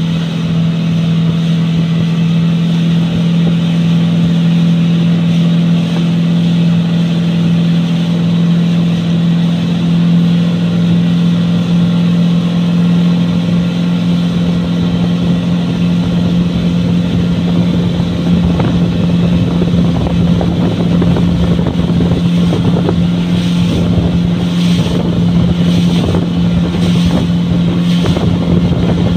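Mercury FourStroke outboard motor running steadily at speed while towing, its drone holding one pitch. Wind and water noise rush over it and grow rougher in the second half.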